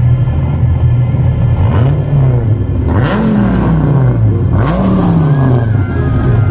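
Dodge Viper V10 engine idling, blipped three times: each rev climbs quickly and falls back slowly to idle.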